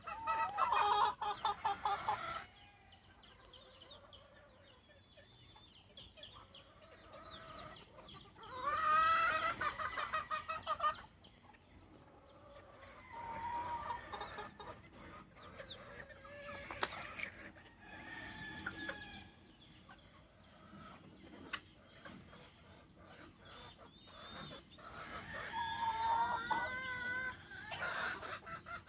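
Gamefowl roosters crowing: three long crows, one at the start, one about a third of the way in and one near the end, with quieter clucking and short calls between.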